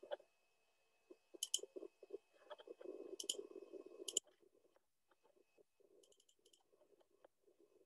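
Faint clicks of a computer mouse, a few single clicks and quick pairs, over a low muffled rumble that stops abruptly with a click about four seconds in.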